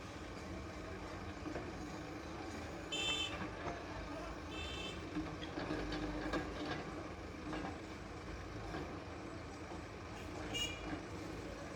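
Case 770 EX backhoe loader's engine running steadily at work, with three short high-pitched beeps: two close together about three and four and a half seconds in, and one more near the end.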